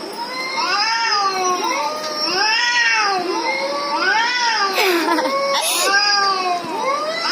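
Recorded cat meows played through a speaker: many overlapping meows, each rising and then falling in pitch, following one another almost without a pause.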